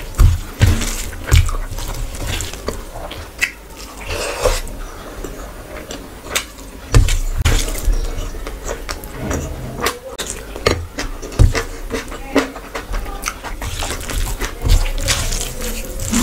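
Close-up eating sounds: rice and curry gravy squelching as it is mixed and squeezed by hand, with chewing and lip smacks in irregular wet clicks.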